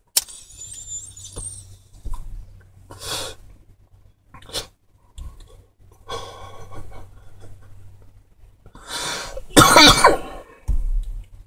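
A man smoking cannabis from a pipe: a lighter clicks and a thin high hiss follows as he draws on the bowl, then breathy exhales. Near the end he coughs hard twice from the smoke.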